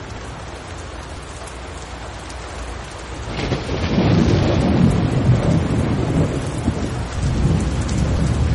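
Rain with a low rolling rumble of thunder that swells about three and a half seconds in and stays loud.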